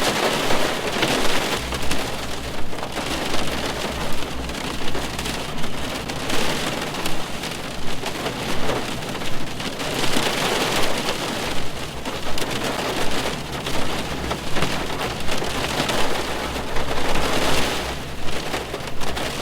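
Rain falling on a car, heard from inside the cabin: a dense, steady patter on the roof and glass that swells and eases every few seconds.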